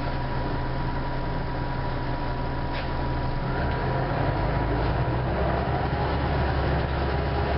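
Orion V city bus's diesel engine idling, heard from inside the bus, then pulling away about three and a half seconds in, with the engine running louder and a rising whine as it accelerates.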